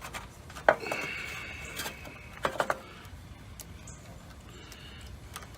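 Metal clinks and sharp knocks of tools and parts being handled while a start kit is fitted in an air-conditioner condenser cabinet, with a short steady high-pitched tone about a second in.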